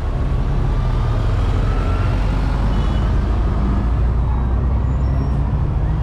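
Road traffic: a heavy vehicle's engine running with a low steady rumble, and a faint rising whine over the first couple of seconds as a vehicle speeds up.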